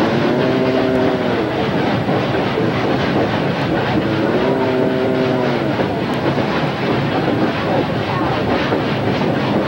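Narrow-gauge steam train running, a steady rolling clatter with a rhythmic beat in the second half. Cattle beside the track moo twice, each call a little over a second long.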